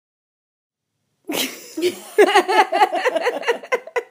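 A woman laughing after about a second of silence: a quick run of high-pitched "ha" sounds at about five a second.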